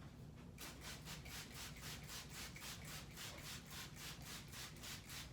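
Trigger spray bottle of multi-purpose cleaner being squeezed rapidly over a massage table: a quick, even run of short hissing sprays, about five a second, starting about half a second in.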